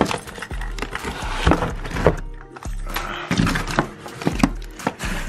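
Cardboard shipping box being worked open, with a run of short sharp scrapes, clicks and rustles as the flaps come apart. Underneath is background music with a steady bass beat.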